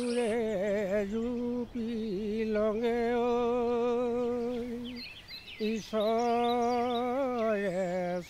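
A lone unaccompanied voice sings long, held notes with a slow vibrato, breaking off briefly about five seconds in.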